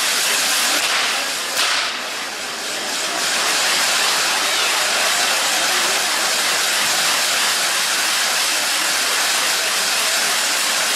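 Spinning firework wheels hissing steadily as they spray sparks, briefly louder about one and a half seconds in, then a little quieter for a second or so.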